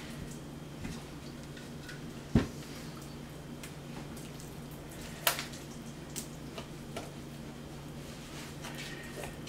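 Hands tying kitchen string around a stuffed whole fish on a wooden cutting board: scattered light ticks and taps, with one sharp knock about two and a half seconds in and a smaller click about five seconds in, over a steady low hum.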